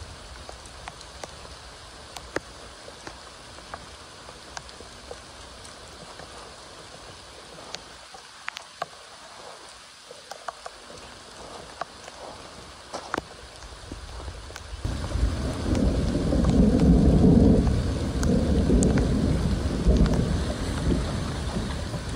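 Rain falling, with scattered single drops ticking close by. About fifteen seconds in, a much louder low rumble comes in suddenly and keeps on.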